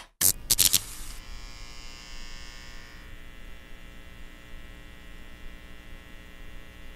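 A few sharp clicks in the first second, then a steady electrical buzz made of many even tones.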